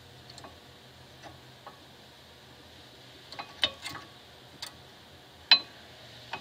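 New brake pads being pushed into a Mercedes W203 front caliper bracket, their steel backing plates clicking against the pad retainer clips: a few light clicks, then a cluster of sharper clacks, the loudest about five and a half seconds in.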